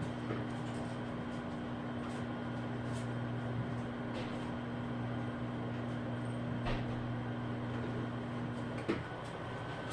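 Steady hum of a running kitchen appliance with a few faint knocks. About nine seconds in, part of the hum cuts off with a sharp click.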